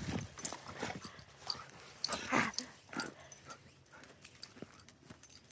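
Dogs playing with sticks. Scattered short clicks and crunches run throughout, with a louder dog vocal sound about two seconds in.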